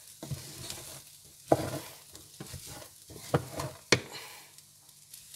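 Wooden spatula stirring parboiled rice frying in oil and butter in a pot, with a soft sizzle. It scrapes and knocks against the pot several times, the sharpest knock about four seconds in.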